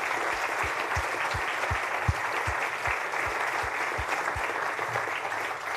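Audience applauding, a dense steady clatter of many hands that starts to die away near the end. Through the first four seconds a run of heavier low thumps, about three a second, sits under it.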